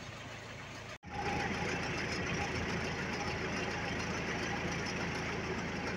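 Rice combine harvester's engine running steadily, louder after a brief break about a second in.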